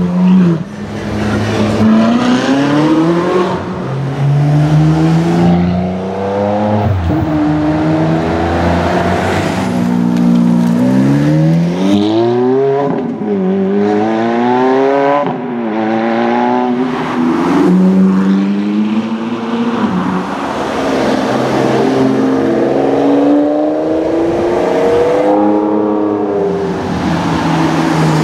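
Ferrari supercar engines accelerating hard, one car after another. The pitch climbs steeply through the revs and drops back at each gear change, several times over.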